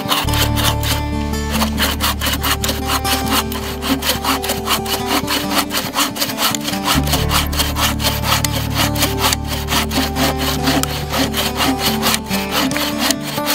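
Wooden-framed bow saw (bucksaw) cutting through a log, its blade rasping in quick, rhythmic back-and-forth strokes. Background music with sustained low bass notes plays along.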